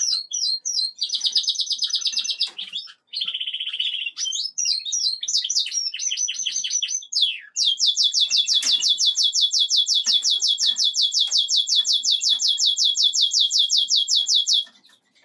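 Fife canary cock singing: varied chirping phrases and short rolls, then a long, even trill of about seven notes a second lasting some seven seconds, which stops just before the end.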